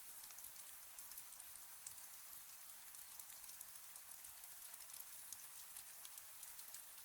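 Gentle rain on a window: a faint, steady hiss with many small drop ticks scattered through it.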